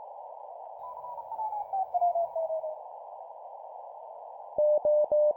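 Morse code (CW) practice tone over a steady hiss like a radio receiver's band noise. Between about one and three seconds in, a pulsed tone steps down in pitch. Near the end a steady tone keys even dashes, the start of the five dashes that send the digit zero.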